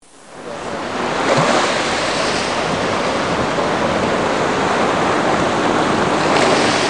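Rushing water sound effect like surf, fading in over about the first second, then holding steady before starting to fade near the end.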